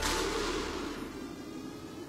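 A rushing whoosh starts suddenly and fades away over about a second, over a low, sustained music drone.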